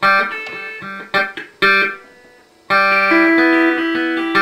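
Electric guitar played with a clean tone, no distortion: a few sharply picked notes and chords, a short break about two seconds in, then ringing chords over one held note.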